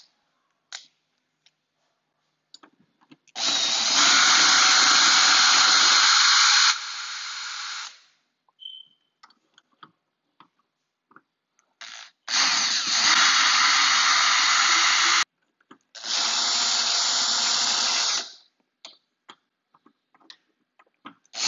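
Power drill run in three bursts, the first stepping down to a slower, quieter speed partway through, with small clicks and knocks between the runs, typical of driving the screws of a new doorknob.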